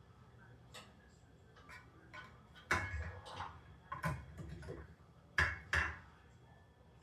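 Several sharp knocks and clinks of hard parts being handled, with a close pair of louder knocks near the end.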